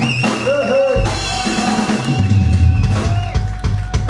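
A live band playing, led by a drum kit with bass drum and snare hits. A heavy low bass part comes in about a second in, under pitched lines that bend up and down.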